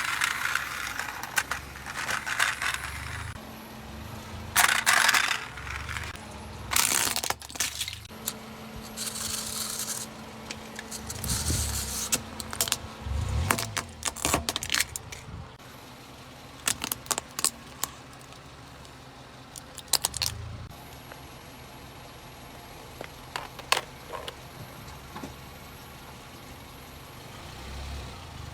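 Car tyres rolling over and crushing crunchy objects: a run of crunches, sharp cracks and rattling clicks over a faint steady engine hum. The cracks thin out over the second half.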